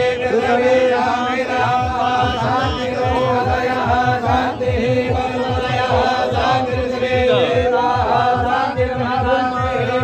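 Hindu puja mantras chanted by several voices, over a steady held tone and a fast, regular low beat.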